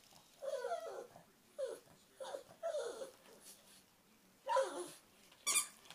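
A pug giving a string of short howling whines that slide down in pitch, about six in all, the possessive grumbling of a dog guarding its rubber chicken toy. Near the end comes a brief, rapidly pulsing sound.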